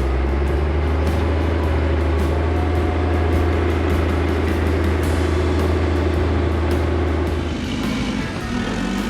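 Heavy equipment engine running at a steady drone, which drops off about seven and a half seconds in.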